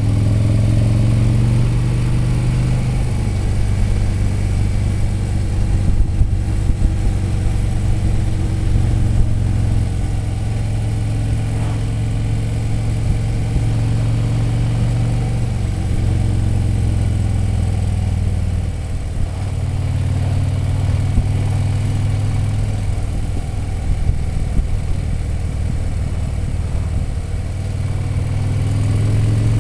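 Motorcycle engine running under way, a steady drone whose pitch drops and rises several times as the throttle is eased and opened again, with wind rush over the bike.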